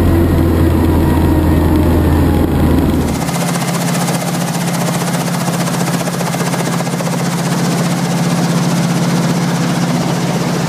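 Schweizer 300 helicopter running on the ground, first heard from inside the cabin as a deep steady drone. About three seconds in it switches to the sound from outside the aircraft: a steady engine hum with a dense rushing rotor noise.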